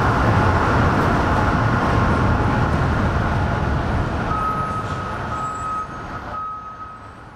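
A towed train of rail cars rolling past on street-level track with a steady loud rumble. A high steady squeal comes and goes in the second half, and the sound fades away near the end.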